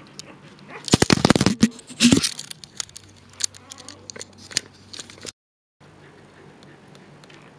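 Close rustling and crackling of cloth rubbing against the microphone: a loud dense run for about a second and a half, then scattered clicks. The sound cuts out for half a second near the end.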